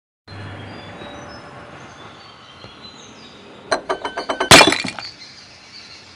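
Glass shattering: a quick run of ringing clinks from about three and a half seconds in, then one loud breaking crash that rings out and fades. Before it there is a soft steady background with faint bird chirps.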